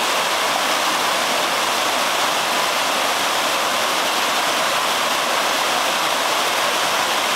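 Mountain stream cascading over rocks in a series of small falls: a steady, even rushing of water.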